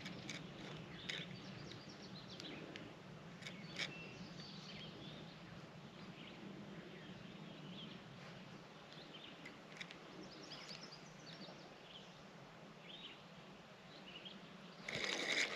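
Quiet outdoor ambience: faint, scattered bird chirps over a low steady hum, with a few light clicks. A louder, noisy stretch begins just before the end.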